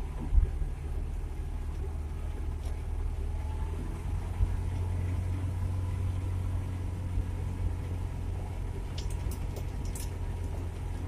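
Suzuki Carry 1.0 pickup's engine running under way, a steady low drone heard from inside the cab, with a sharp knock just after the start and a few sharp ticks near the end.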